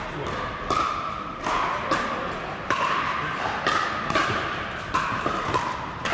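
Pickleball paddles striking the hard plastic ball in a fast rally, a sharp ringing pock about twice a second, echoing in a large indoor hall.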